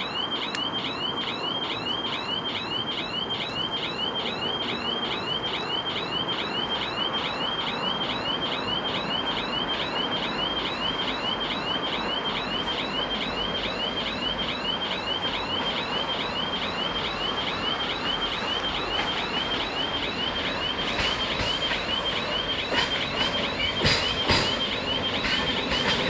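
Level crossing warning bells sounding a fast, evenly repeating electronic chirp, about two or three a second. Over the last several seconds the noise of an approaching passenger train builds, with wheel clicks and knocks on the rails.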